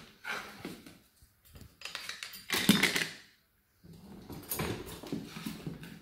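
Plastic lid and dishes knocking and rattling as the lid is fitted into a dishwasher's lower rack beside the plates, with a louder clatter about two and a half seconds in.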